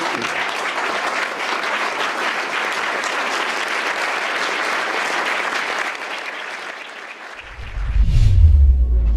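Banquet guests applauding, many hands clapping, dying away after about six seconds. Then a deep boom with a low rumble falling in pitch, the loudest sound here, opens the animated logo intro.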